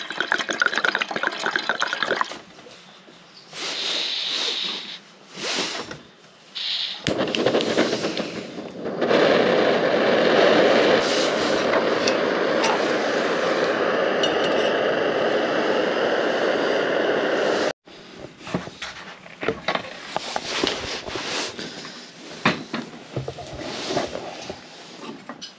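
Gas canister backpacking stove being lit and burning with a steady, loud rushing hiss of its flame, which cuts off suddenly about two thirds of the way through. Afterwards, scattered clicks and clinks of cookware being handled.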